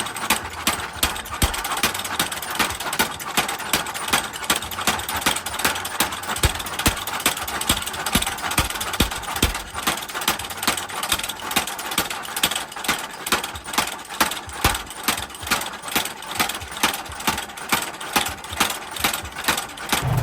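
Hammer blows on steel being forged, an even rhythm of about two to three strikes a second, over a steady rushing noise.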